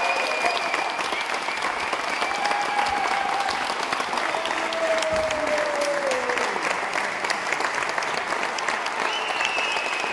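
Audience applauding steadily, with a few long high whistles and cheers held over the clapping.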